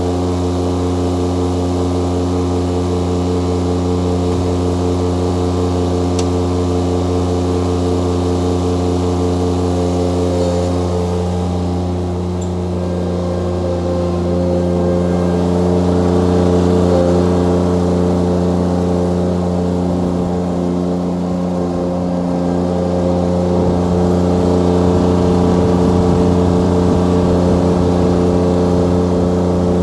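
John Deere F935's three-cylinder diesel engine running at a steady speed as the tractor drives and turns. It gets a little louder in the second half as the machine comes closer.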